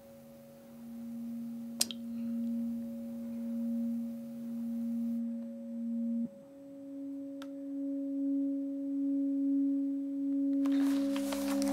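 Ambient film-score drone of sustained pure tones: a low tone that steps up slightly in pitch about six seconds in, over a steady higher tone, slowly swelling and fading. A brief rustle near the end.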